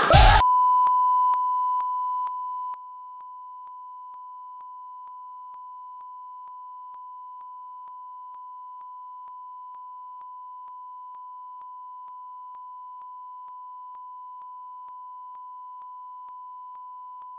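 Steady, unbroken colour-bar test tone, a single pure beep. It starts loud, drops in steps over the first few seconds, then holds level. A brief loud burst opens it at the very start.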